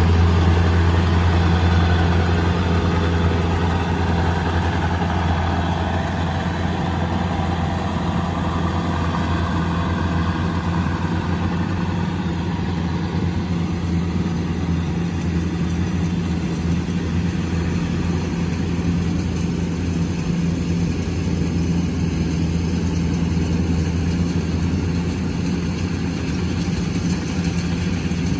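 Rice combine harvester's diesel engine running steadily while cutting and threshing, a low even drone that eases a little over the first few seconds.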